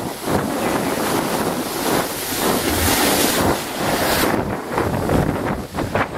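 Wind buffeting an action camera's microphone as it moves fast over the water, mixed with the rush and spray of water under a wakeboard. The wind hiss eases a little about four seconds in.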